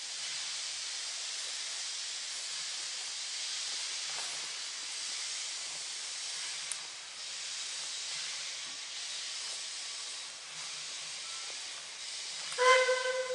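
A steady hiss, then near the end the whistle of a Puffing Billy NA-class steam locomotive blows, a loud pitched note that holds on.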